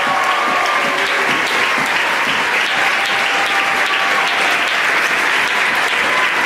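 Steady applause from the audience and from the singers clapping on stage.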